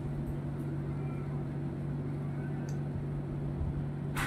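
Steady low hum of a running appliance, with faint ticks and one sharp click near the end.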